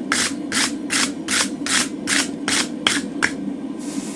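Steel wire brush scrubbed back and forth by hand over a freshly forged mild-steel drift, about three scratchy strokes a second, stopping a little over three seconds in. It is scrubbing forge scale off the drift's middle so the steel will glide through a punched hole. A steady low hum runs underneath.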